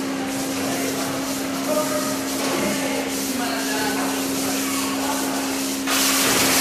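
Milking machine running in a milking parlour: a steady hum from the vacuum system under a constant hiss of air, with a louder, brighter hiss setting in about six seconds in.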